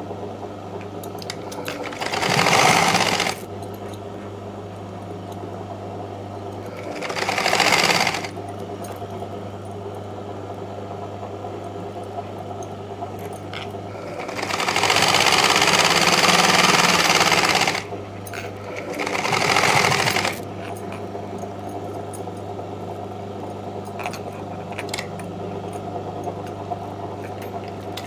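Domestic sewing machine stitching a folded blouse hem in four runs: two short ones, a longer one of about three seconds, then another short one. A steady low hum carries on between the runs.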